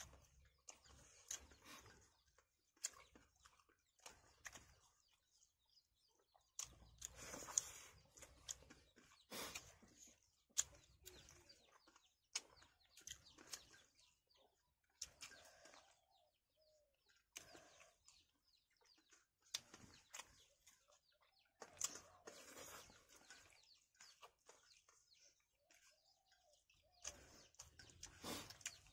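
Close-up eating sounds: chewing and lip smacks, with fingers working rice against steel plates, in an irregular string of short, sharp clicks and smacks.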